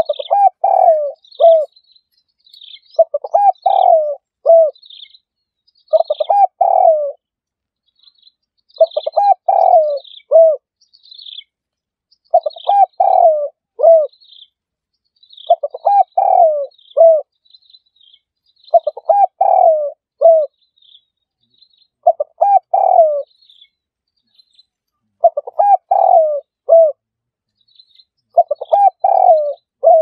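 Spotted dove cooing: a multi-note phrase repeated about every three seconds, some ten times over, with faint high chirping between the coos.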